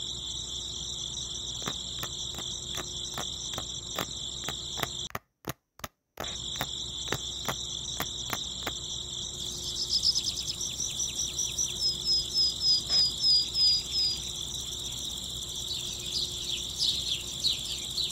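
Insects chirring steadily in a high trill, with a run of quicker, higher chirps in the middle and faint scattered clicks. The sound cuts out for about a second around five seconds in.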